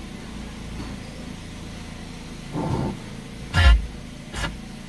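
Steady low hum of a car cabin with the engine idling. The stereo head unit gives three short bursts of sound as it switches audio source, the loudest about two-thirds of the way through.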